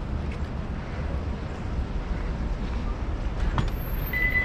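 Steady low vehicle rumble, with a steady high electronic beep starting near the end.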